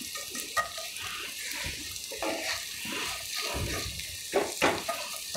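Sliced onions sizzling in hot oil in a cast-iron pan as a wooden spatula stirs them, with a few knocks of the spatula against the pan, two close together near the end.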